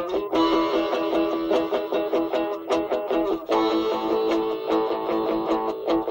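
Guitar-led music played through a Nokia mobile phone's small built-in loudspeaker, thin and with little bass.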